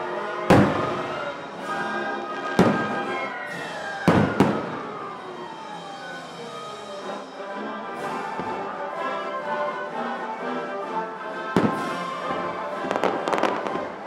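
Aerial firework shells bursting with sharp bangs, four in the first five seconds and more near the end, with a quiet spell between them. Music plays steadily underneath.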